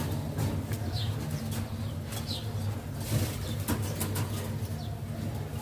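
Modena pigeons moving about, with scattered wing flaps and sharp clicks over low cooing, and a few short high chirps.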